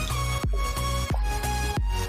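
Background electronic dance music with a steady, heavy beat and held synth notes.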